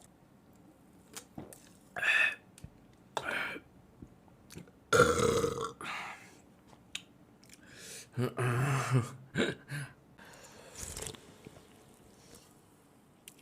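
A man burping several times in a row. The loudest burp comes about five seconds in, and a longer, low-pitched one follows about three seconds later, with shorter, quieter ones around them.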